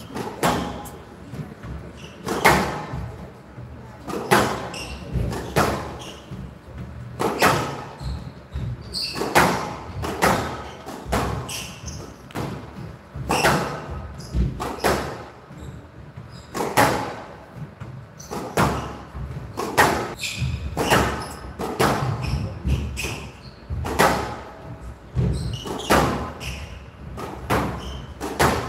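A squash rally: the ball is struck hard by the rackets and slams into the walls in a steady back-and-forth, one sharp crack about every second. Each hit echoes briefly in the glass-walled court.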